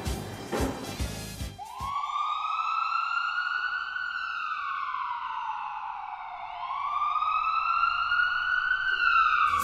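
Music cut off about a second and a half in by a siren wailing. The siren rises in pitch, falls slowly over several seconds, then rises again.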